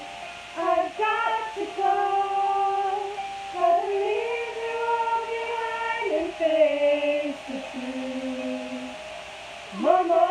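Women singing along in long held notes with no clear words, sliding from one pitch to the next, with a brief pause near the end before a new note comes in.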